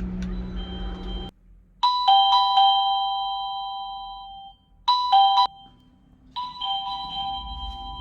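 AVANTEK D-3B wireless doorbell receiver playing its chime melodies: bell-like notes struck in falling ding-dong pairs, each ringing on and fading. One melody starts about two seconds in and dies away over a couple of seconds, a second is cut off after half a second, and a third begins near the end.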